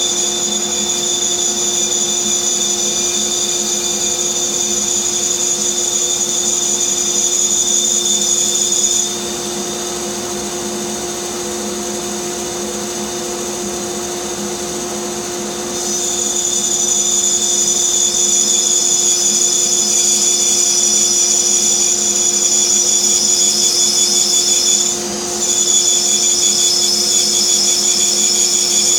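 Bandsaw running steadily while its blade cuts a slow freehand curve through a wood block. A high whine sits over the motor hum, dropping away for several seconds near the middle and briefly again near the end.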